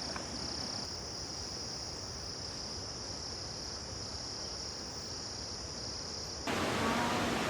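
Steady high-pitched drone of forest insects over faint background hiss. About six and a half seconds in it cuts off abruptly and a louder, even rushing noise takes over.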